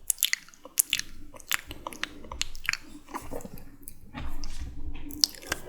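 Close-up ASMR mouth sounds: wet, sticky clicks and smacks of lips and tongue, irregular and rapid, with a longer wet smacking stretch about four seconds in.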